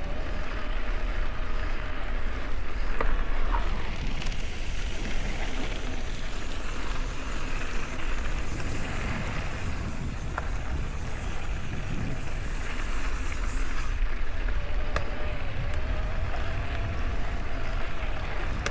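Wind buffeting the microphone of a mountain bike ride camera, with the bike's tyres rolling over soft dirt single track and a few short clicks and rattles from the bike.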